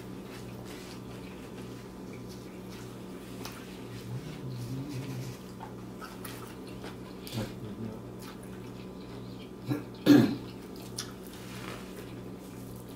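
A person quietly chewing a mouthful of burger, with soft mouth and napkin sounds over a low steady hum, and one brief loud sound about ten seconds in.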